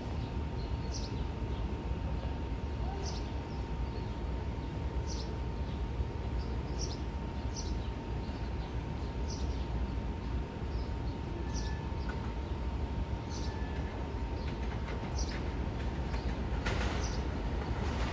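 A bird chirping, short high calls repeated about every second or two, over a steady low rumble and a faint steady hum. Near the end a hiss builds, the first sound of an approaching subway train.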